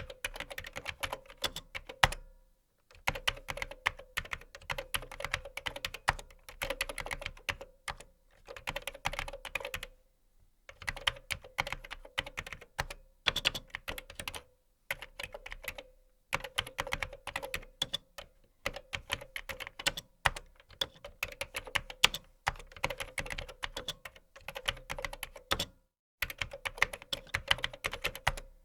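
Typing on a computer keyboard: quick runs of keystrokes, broken every few seconds by brief pauses of under a second.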